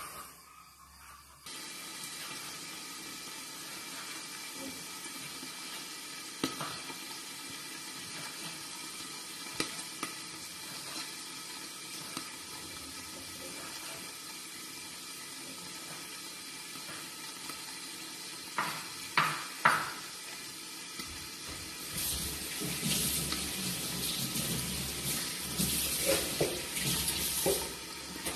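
Pork cooking in a covered frying pan, making a steady sizzling, bubbling hiss of juices under the glass lid. It starts about a second and a half in. A few sharp clicks come about two-thirds through, then the sizzle grows louder and crackles over the last several seconds.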